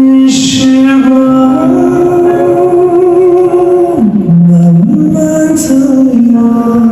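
Live male vocal with accompaniment, singing long held notes that slide between pitches, with one downward slide and return about four seconds in. It is an audience recording of a rehearsal, so the sound is not very clear.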